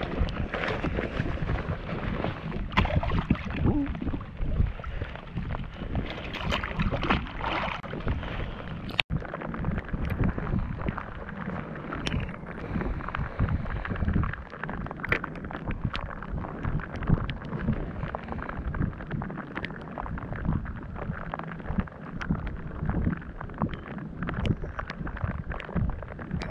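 Wind buffeting the microphone and choppy water slapping against the hull of a small fishing kayak, with scattered light knocks and clicks. The sound cuts out for an instant about nine seconds in.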